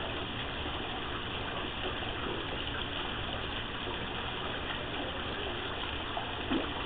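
Steady rushing of running water, an even hiss-like rush that keeps on without change.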